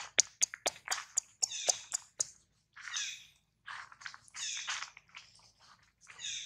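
Infant long-tailed macaque crying: a quick run of short, sharp squeaks in the first two seconds, then longer high-pitched, wavering squeals in bouts to the end.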